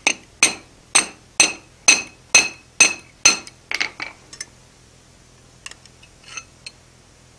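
Hand hammer striking a hot steel drive hook held in tongs on the anvil face: about eight ringing blows, roughly two a second, straightening the hook's curve. A couple of lighter knocks follow, then a few faint metal clinks.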